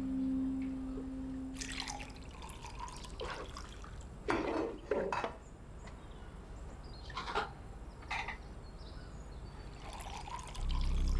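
Juice being poured into a glass, with a few short knocks and clinks of glassware being handled on a stone countertop. Soft music fades out at the start and comes back just before the end.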